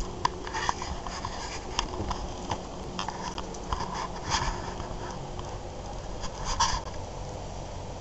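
Soft scratching and rustling with scattered small clicks, over a steady low background hum.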